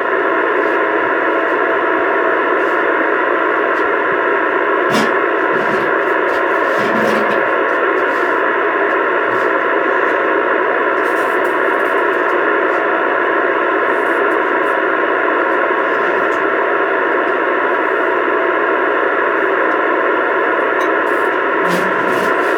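Steady, loud rushing noise coming over the air through a CB radio's speaker, with the thin, narrow sound of radio audio; it holds at one level and cuts off suddenly at the end.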